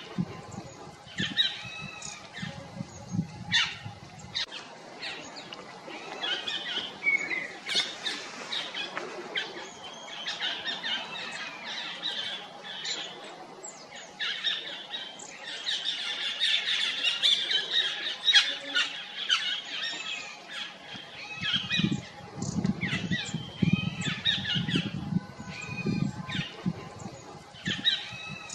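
Small forest birds chirping and twittering in high-pitched, overlapping calls, which the uploader takes to be a flock of stripe-throated yuhinas; the chatter is densest in the middle. A low rumble sits under the calls near the start and again in the last several seconds.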